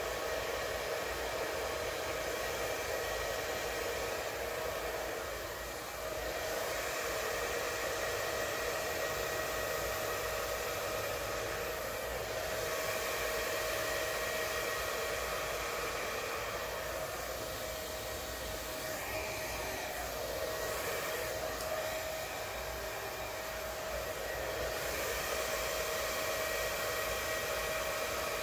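Hair dryer running continuously with a steady whine, blowing wet acrylic paint outward across a canvas in a Dutch pour.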